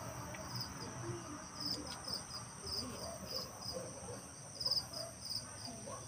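Crickets chirping: short, high chirps repeating evenly at about two to three a second, over a steady high-pitched insect drone.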